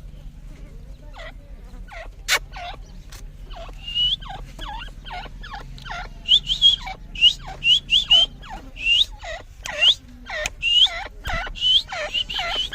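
Dakhni teetar (grey francolins) calling: a few scattered short calls at first, then from about four seconds in a fast run of short, sharply rising calls, roughly two a second, from more than one bird.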